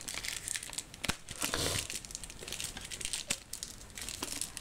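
Hands removing a piece of packaging card from an OtterBox Commuter phone case: crinkling and rustling with scattered small clicks, busiest about a second and a half in.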